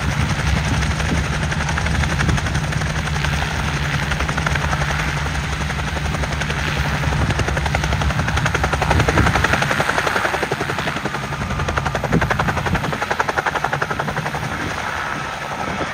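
Helicopter running close by, its main rotor beating in a fast, even chop. A deep low drone under the chop drops away about two-thirds of the way through, leaving the rotor beat.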